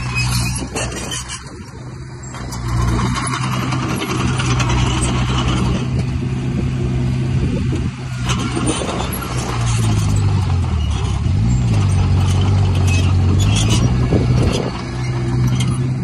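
Heavy diesel engine of earthmoving machinery working, running steadily with its pitch rising and falling about ten to thirteen seconds in, with brief rattles over it.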